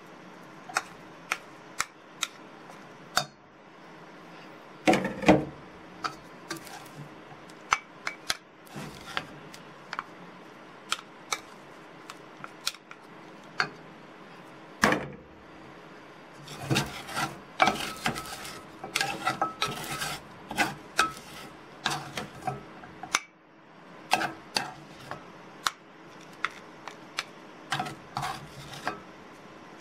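Plastic rice paddle scraping and tapping against a metal frying pan and a small metal cup as cooked rice is scooped and packed: many sharp clicks and knocks, with busier stretches of scraping.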